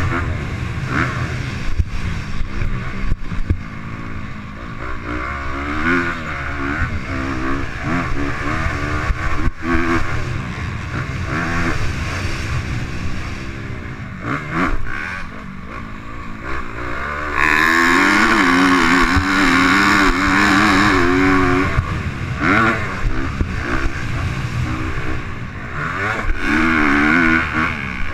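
Dirt bike engine revving up and down as it is ridden around a motocross track, the revs rising and dropping over and over through the corners and jumps. Past the middle it is held at high revs for about four seconds.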